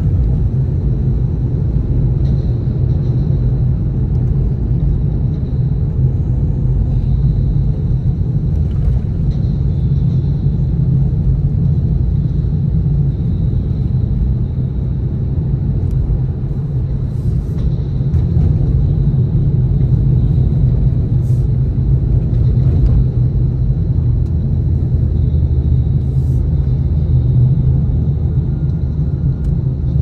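Nissan Fairlady Z (Z34) on the move: a steady low rumble of engine and road noise, growing slightly louder about two-thirds of the way through.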